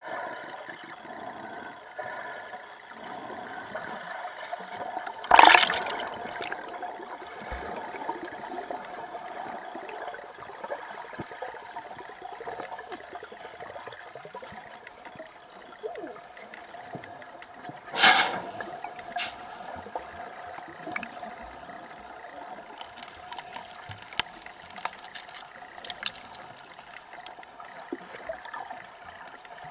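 Water heard through a camera held underwater: a steady, muffled gurgling wash. Two loud rushing surges come about five seconds in and again at about eighteen seconds, and scattered crackles follow in the last few seconds.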